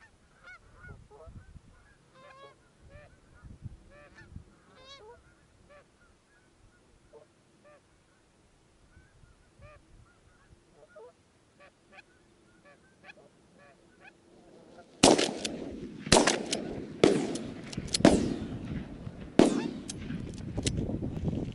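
Canada geese honking as a flock flies in, faint and repeated, then a volley of about five shotgun blasts in quick succession starting about fifteen seconds in.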